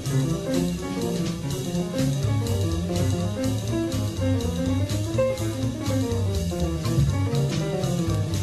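Jazz instrumental music: plucked guitar over bass and drum kit, with a steady beat.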